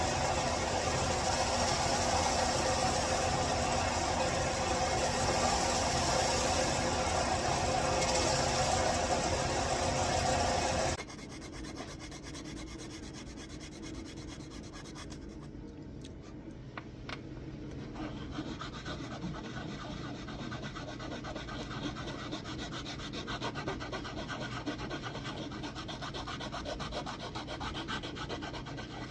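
Sanding a homemade fishing lure: loud steady abrasive rubbing that stops suddenly about eleven seconds in, then quieter, continuing rubbing strokes with a few light ticks.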